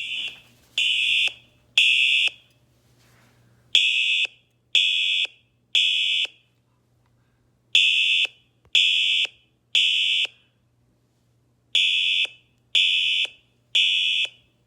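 Recorded fire alarm horn tones, an older Siemens horn and a Simplex TrueAlert horn both on a 3000 hertz tone, played together through tablet speakers and sounding really clashy. They sound in the temporal-three evacuation pattern: three half-second blasts a second apart, then a pause, four times over.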